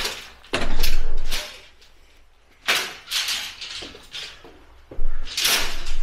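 A closed old door being pushed and forced open: three loud spells of scraping and knocking, the first about half a second in, another around three seconds, the last near the end.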